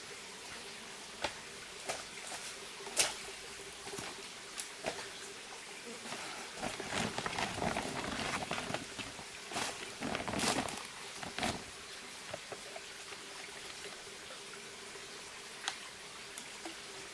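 Footsteps snapping and crunching on dry bamboo leaves and twigs, then several seconds of rustling and crinkling as a woven plastic sack is handled and rummaged through, with a few scattered clicks afterwards. A faint steady hum runs underneath.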